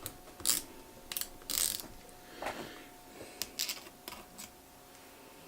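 Small screwdriver turning screws into the aluminium bottom case of a 2012 MacBook Pro: a run of light clicks and short scrapes of metal on metal, stopping about four and a half seconds in.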